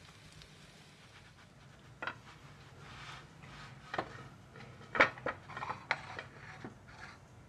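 Spatula knocking and scraping against a non-stick tawa and a ceramic plate as shallow-fried potato tikkis are lifted off the pan and set down. There are a handful of separate clinks, the loudest about five seconds in, with soft scraping between them.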